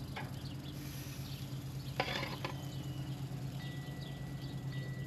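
Hot dogs sizzling on a charcoal grill, a steady crackling hiss like a rattlesnake's rattle, over a steady low hum.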